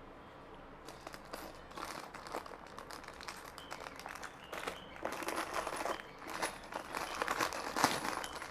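Plastic packaging crinkling and rustling as it is handled, starting about a second in as irregular crackles that grow louder toward the end.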